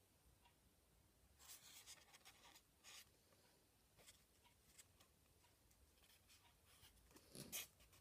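Faint crinkling and rustling of a paper origami bird, tissue paper glued on kraft, as it is lifted and turned in the hand, with a few soft crackles between one and three seconds in and a louder brief crinkle near the end.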